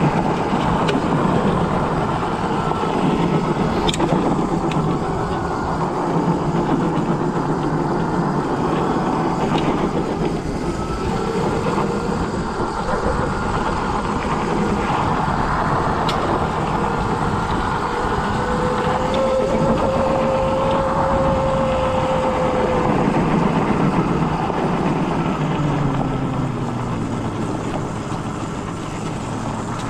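Scooter being ridden: a steady rumble of motor and road noise, with a faint whine that rises and falls in pitch.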